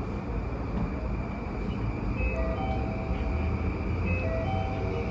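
A station chime melody, a few short stepped notes from about two seconds in, over the steady low rumble of a commuter train at the platform.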